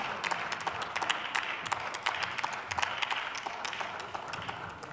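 Scattered applause from members of parliament: separate hand claps at a steady density that thin out and fade away near the end.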